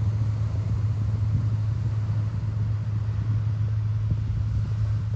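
A steady low engine hum with a rumble underneath, holding one constant pitch without revving.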